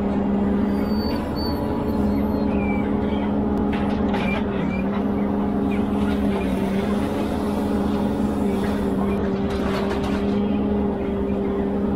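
Ponsse Elephant forwarder's diesel engine running steadily at a constant speed while the crane works, with a few brief knocks.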